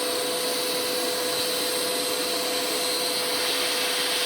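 Steady machine hiss and whir with a constant hum from the Blue Elephant 1530 ATC CNC router's running equipment, just after the cutter cooling has been switched on.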